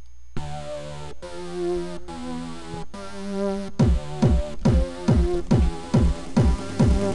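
Electronic beat made in FL Studio playing back. Synth chords come in short phrases with brief gaps. From about four seconds in, deep kick drums join, each falling in pitch, about two a second.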